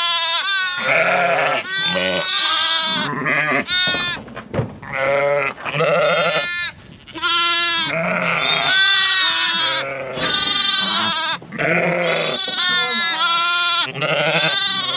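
Ewes and young lambs bleating over one another, many quavering calls overlapping almost without a break, as ewes and lambs call to find each other and pair up after turnout.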